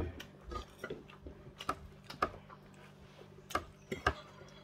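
Irregular small clicks and taps of someone eating with her fingers: chewing and mouth sounds, with light knocks against the plate, over a faint steady low hum.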